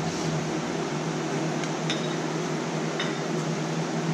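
Steady whir and hum of a fan running, with a few faint light clicks from baits and molds being handled.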